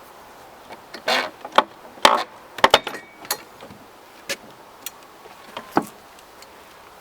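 Pallet buster levering a slat off a wooden pallet: a few short creaks of wood and nails pulling loose, mixed with a string of sharp knocks and cracks spread over several seconds.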